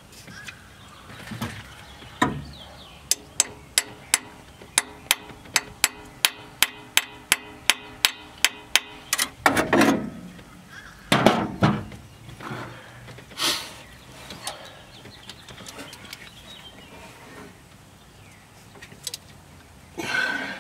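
A run of about twenty sharp, evenly spaced metallic clicks, roughly three a second, then a few louder knocks and clatters: hand tools at work on the front of a 1964 Ford Falcon's engine, around a bolt that has just broken off.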